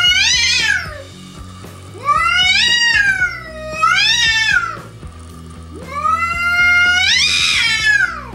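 Domestic cat yowling aggressively at a bobcat outside: a string of about four long, drawn-out yowls, each rising and then falling in pitch.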